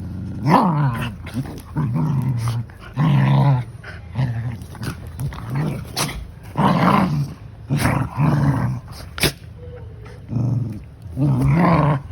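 Dogs growling in rough play, in repeated bursts of about a second, with a few sharp knocks in between.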